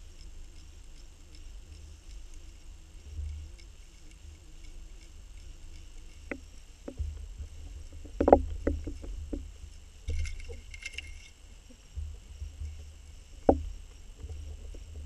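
Underwater sound picked up through a camera housing as it is drawn through the water: a steady low rumble of moving water with a faint high whine over it. Several sharp knocks, the loudest about eight seconds in and another near the end, and a brief patter of ticks about ten seconds in.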